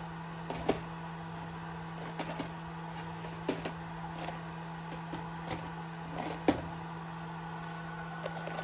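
Scattered light clicks and knocks of small hardware and plastic containers being handled while rummaging for a part, over a steady low hum. The loudest knock comes about six and a half seconds in.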